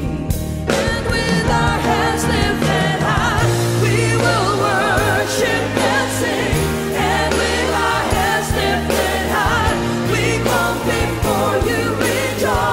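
Live praise-and-worship band: a woman leads the chorus of a worship song with backing singers, over drum kit, percussion and band. The full band comes in strongly about half a second in and plays on with a steady beat.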